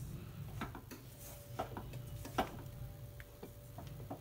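Wooden spatula knocking and scraping against a steel kadhai while mixing crumbly rice-flour dough, in irregular taps roughly once or twice a second.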